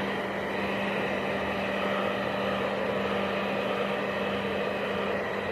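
Hand-held electric hair dryer blowing steadily, a constant rush of air over a steady motor hum.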